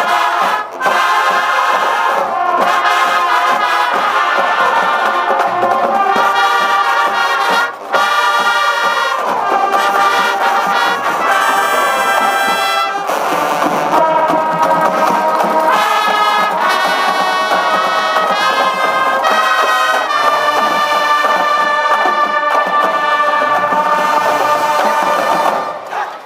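High school marching band playing loud, brass-led music, with trumpets and trombones sounding chords. Two short breaks in the playing come about a second in and about eight seconds in.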